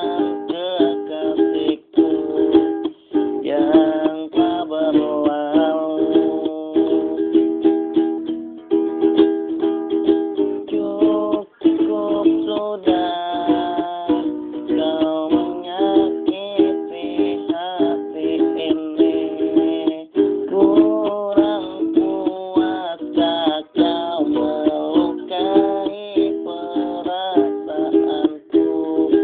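A small acoustic string instrument strummed in a steady rhythm, playing a song, with a wavering melody line over the chords. The sound has the close ring of a small room.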